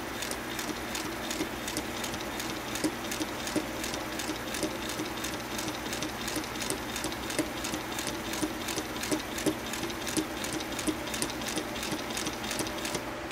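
1950 Singer Featherweight 221 sewing machine stitching a rolled hem at a slow, even pace: a steady motor hum with a regular click at each needle stroke, about three a second. It stops at the very end.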